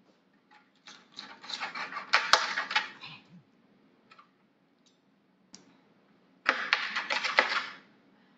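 Roast chicken being cut with a knife and torn apart by hand in a metal roasting pan: two bursts of rapid crackling and clicking, with the crisp skin breaking and the knife ticking against the pan.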